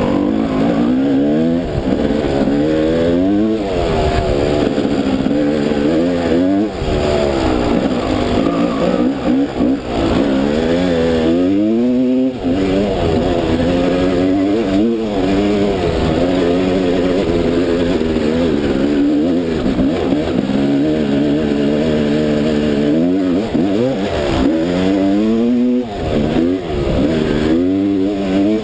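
Motocross bike engine revving as it rides over rough track, pitch climbing and falling over and over as the throttle opens and shuts, with brief drops at each throttle-off.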